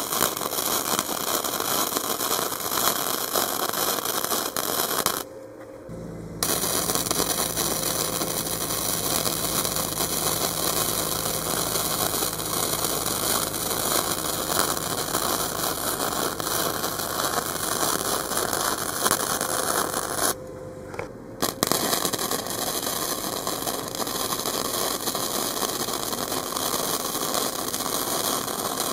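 Flux-core welding arc crackling steadily as a bead is run on mild steel exhaust pipe with a Harbor Freight Easy-Flux 125 welder. The arc breaks off twice, about five seconds in and about twenty seconds in, going quiet for about a second each time before it strikes again.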